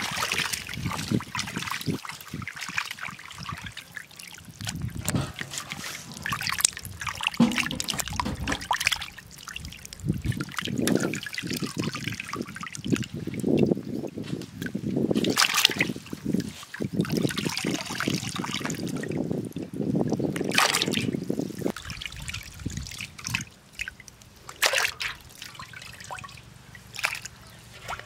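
Raw chicken liver and gizzard pieces being washed by hand in metal basins of water. Irregular sloshing, splashing and trickling as the meat is stirred and squeezed and pieces are dropped into clean water.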